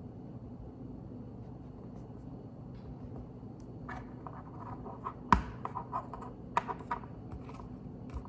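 Plastic Lego pieces being handled and pressed together: scattered small clicks and rattles beginning about halfway through, with one sharp, louder click among them, over a low steady hum.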